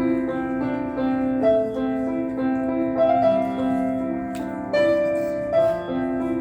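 Solo piano playing a slow piece with held notes and chords, moving to a new note or chord every half second to second or so.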